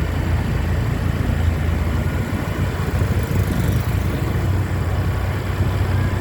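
Bus engine running with a steady low rumble.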